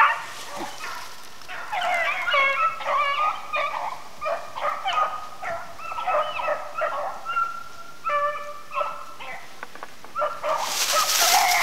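A pack of beagles baying and yipping as they run a rabbit, several dogs' voices overlapping in short broken calls. Near the end a broad rushing noise rises over them.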